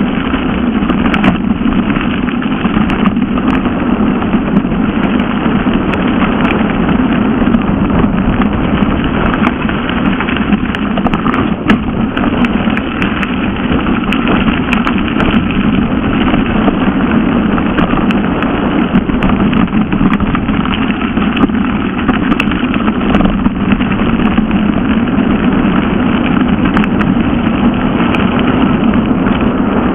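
A mountain bike rolling fast down a gravel forest track: a steady, loud rushing rumble of wind on the camera microphone and tyres on loose gravel, with scattered small clicks and knocks from stones and the bike's rattling parts.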